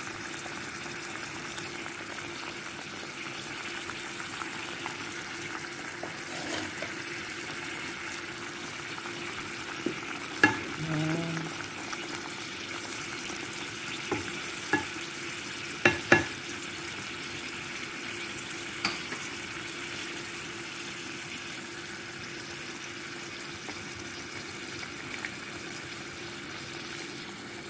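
A pot of vegetable stew bubbling and sizzling on a gas stove, with a few sharp knocks of a wooden spatula against the pot as it is stirred in the middle.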